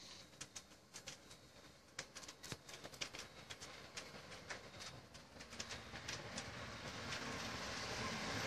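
Scattered sharp clicks and pops through the first six seconds, then the noise of an approaching fire engine growing steadily louder.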